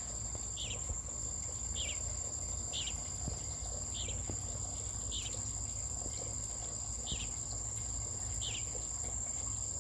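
Crickets trilling in one steady high note, with a short falling chirp repeating about once a second over it.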